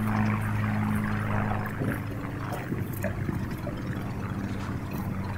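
A vehicle engine idling with a steady low hum that drops in pitch and level about two seconds in, with light knocks and rustling from mesh sacks of potatoes being loaded into the back of an SUV.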